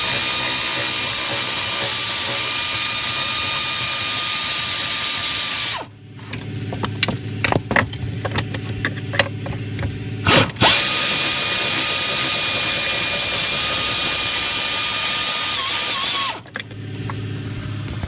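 3/8-inch pneumatic air ratchet with an extension and a 15 mm wobble socket, running in two long bursts of about six seconds each as it backs out the clutch pedal assembly's retaining bolts. It gives a steady high whine. Between the bursts come scattered clicks and knocks.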